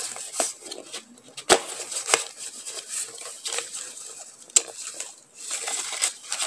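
A stack of thin translucent paper journaling cards being fanned and shuffled by hand: crisp rustling and flicking of the sheets, with sharper taps about one and a half, two, and four and a half seconds in.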